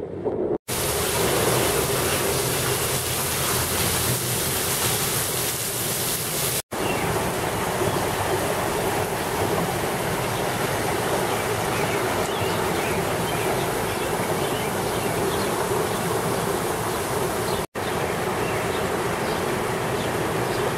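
Muddy floodwater from a creek out of its banks rushing and churning: a loud, steady rush that drops out for an instant three times.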